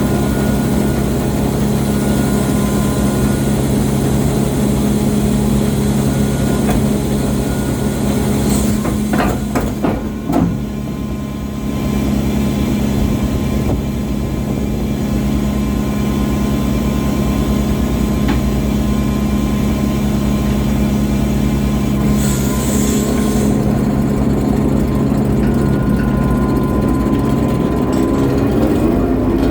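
Boat engine running steadily with a constant low drone, heard aboard; a few brief knocks about nine to ten seconds in.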